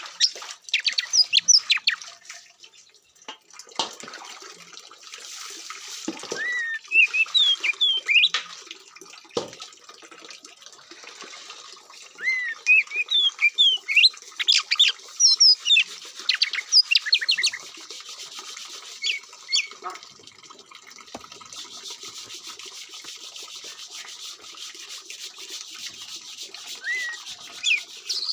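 Oriental magpie-robin (kacer) singing in bursts of varied whistled notes, rising and falling chirps, with pauses between phrases over a steady background hiss. The bird is mostly quiet for several seconds in the second half.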